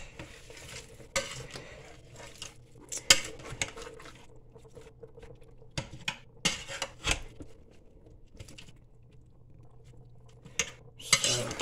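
A spoon stirring meat and vegetables in an electric pressure cooker's inner pot: irregular clinks and scrapes against the pot, the sharpest about three seconds in and again around six to seven seconds in, over a faint steady hum.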